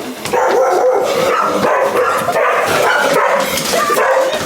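A dog barking and yipping almost without pause.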